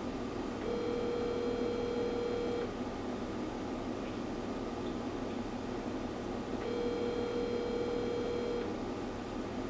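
Phone ringback tone heard over a speakerphone: two rings, each about two seconds long and four seconds apart, while the called line goes unanswered. A steady hiss runs underneath.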